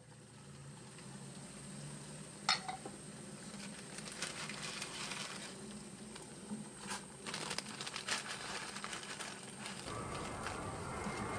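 Pots and kitchen utensils being handled: a sharp knock about two and a half seconds in, then a run of clinks and knocks, over a steady hiss that gets louder about ten seconds in.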